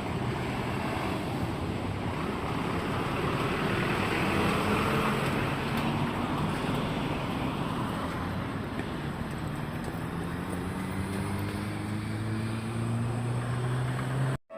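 Keikyu electric train running by under a steady wash of running noise, its motors' whine rising slowly in pitch as it accelerates and growing louder, then cut off suddenly at the end.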